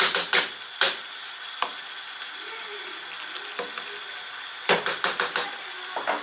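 Chicken legs frying in a pan of sauce and water, a steady sizzle, with a slotted spatula knocking and scraping against the pan a few times, in a quick cluster about five seconds in.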